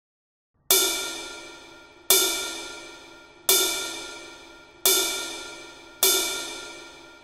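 A cymbal struck five times at a steady pace, about one hit every second and a half, starting just under a second in. Each hit rings out with a bright shimmer and fades before the next.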